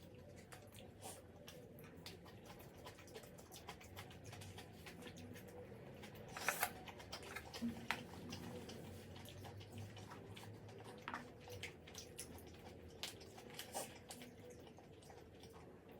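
Quiet eating sounds: scattered small clicks and smacks of chewing and of utensils on the dish, with a louder clatter about six and a half seconds in.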